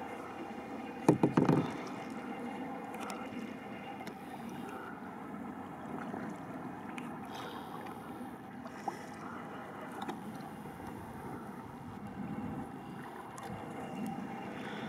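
Kayak on the water: steady water and paddling noise, with a quick run of about four knocks about a second in.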